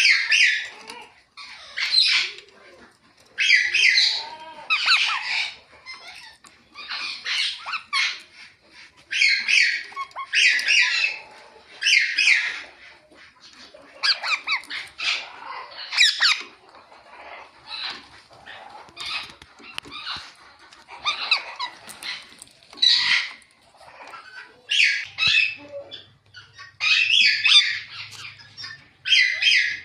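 Ringneck parrot chirping and squawking in short, shrill calls repeated about once a second, with brief pauses between runs.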